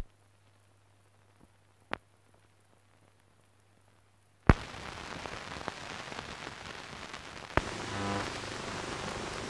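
Noise from a film print with no recorded sound. At first only a faint low hum and a single click are heard. About halfway in a loud click starts a steady crackling hiss, with scattered clicks and a brief buzz.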